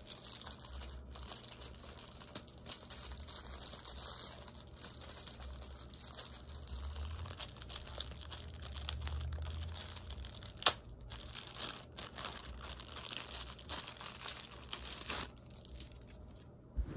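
Packaging crinkling and tearing as it is handled and pulled apart during an unboxing, with one sharp click about ten and a half seconds in.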